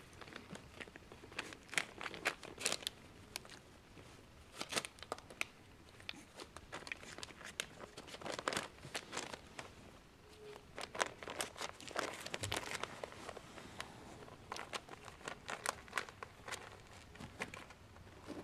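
Newspaper crinkling under a Chihuahua puppy's paws as it walks about on it, in irregular clusters of sharp crackles.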